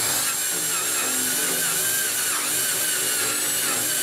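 Handheld power drill running under load as a very dull 3/4-inch step drill bit cuts through a metal plate: a steady high motor whine with a cutting note that wavers up and down in pitch.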